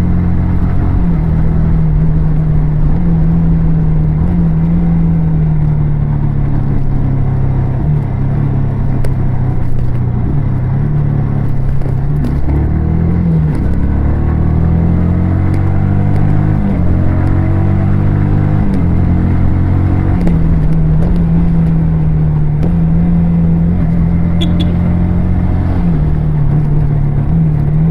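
Yamaha R15 V3 motorcycle's single-cylinder engine and exhaust under way, the note stepping up and down in pitch with throttle and gear changes. About halfway through it drops low and climbs again.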